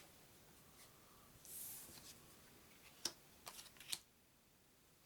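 Quiet handling of glossy trading cards: a soft sliding hiss about a second and a half in as a card is moved, then a few small clicks and taps from about three seconds in.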